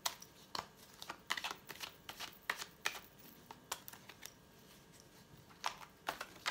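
A deck of fortune-telling cards being shuffled by hand, overhand: a quick, irregular run of card snaps and flicks that thins out about four seconds in and picks up again near the end.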